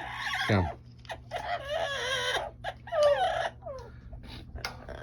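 Amazon parrot calling in two bouts of wavering squawks, the first about a second in and a shorter one about three seconds in, over a steady low hum.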